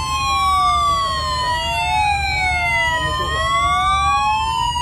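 Police escort sirens wailing. At least two sirens sound at once out of step, each slowly rising and falling over a few seconds, over a steady low rumble.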